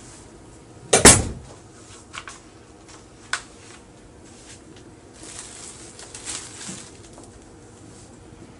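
A sharp knock about a second in, then a lighter click a couple of seconds later and soft rustling noise.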